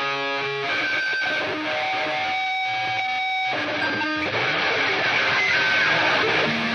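Music with strummed electric guitar.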